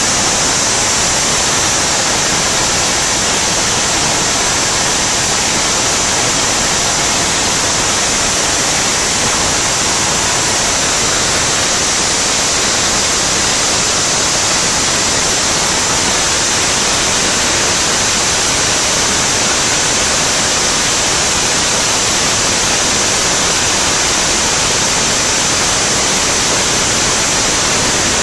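Vought F4U Corsair in flight heard from inside its cockpit: the radial engine and the slipstream blend into one loud, steady rush, strongest in the high hiss, with no change.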